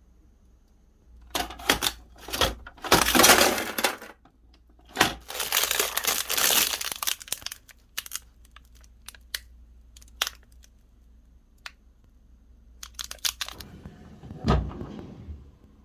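Crinkling and tearing of packaging in two long bursts, then scattered clicks and more rustling ending in a single knock near the end.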